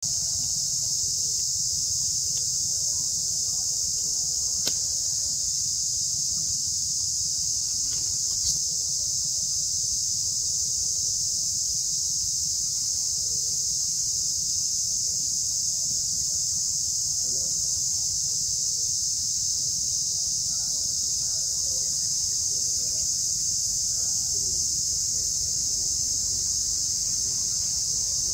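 A steady, high-pitched insect chorus that runs unbroken, over a low rumble, with two brief clicks about five and eight seconds in.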